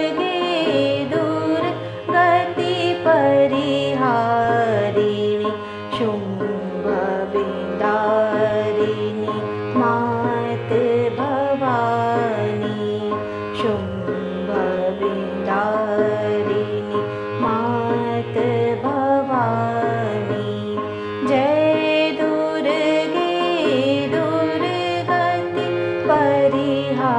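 Hindustani classical music: a melody in Raag Durga with gliding notes, over tabla keeping teen taal.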